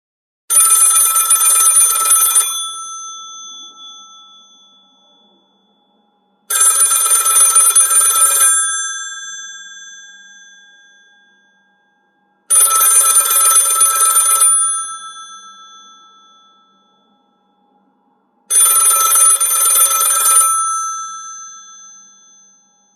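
Classic old telephone bell ringtone: four rings of about two seconds each, six seconds apart, the bell's tone fading out after each ring.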